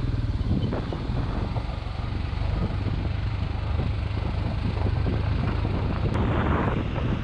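Motorcycle running at road speed, a steady low drone, with wind rushing over the microphone.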